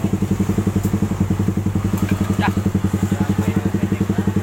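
Suzuki Satria FU 150's single-cylinder four-stroke engine idling steadily through a full-system road-race exhaust, a deep, round bass note pulsing evenly at about ten beats a second.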